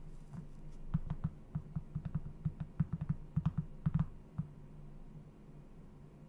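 A quick, irregular run of computer keyboard keystrokes lasting about three and a half seconds, over a faint steady low hum.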